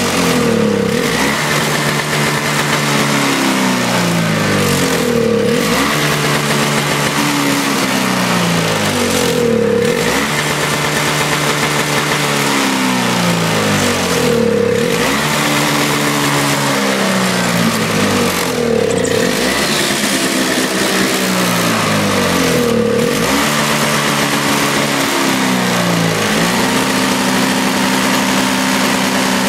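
Toro CCR 2450 snowblower's two-stroke engine running and surging: its speed sinks and climbs back again about every four to five seconds. Near the end it settles to a steady run.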